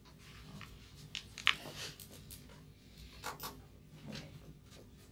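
Dry-erase marker scratching and squeaking on a whiteboard in a series of short strokes as numbers are written.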